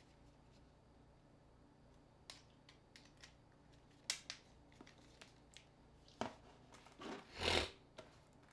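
Small plastic clicks and taps of a smartphone being taken apart by hand, its casing and parts pried and handled, with one longer, louder scrape about seven seconds in.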